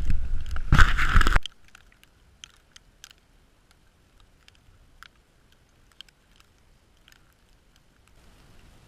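Wind buffeting a GoPro's microphone in a snowstorm, a loud rumbling rush that cuts off suddenly about a second and a half in. After it come faint, scattered clicks and ticks.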